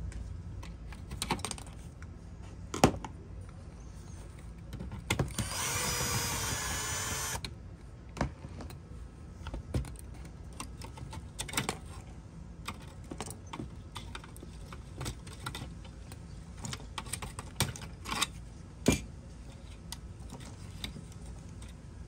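Small power screwdriver whirring for about two seconds, a little past a quarter of the way in, as a screw is driven out of a diecast Jaguar XK8 model car's baseplate. Scattered light clicks and knocks of metal and plastic parts being handled and set down on the table.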